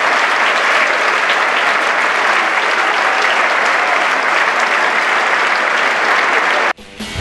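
Tennis crowd applauding: a steady dense clatter of many hands clapping, cut off abruptly near the end.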